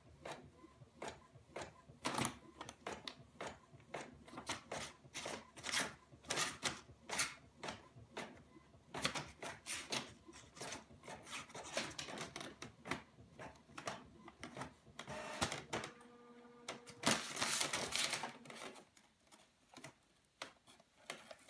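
Inkjet printer printing a page: an irregular run of mechanical clicks and clatter as the paper feeds and the print head works, with a brief steady motor hum about two-thirds through.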